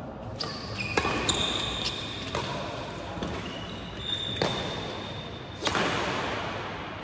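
Badminton rally: rackets strike the shuttlecock with sharp cracks, about five hits spaced a second or more apart. Short high squeaks from shoes on the court floor come between the hits.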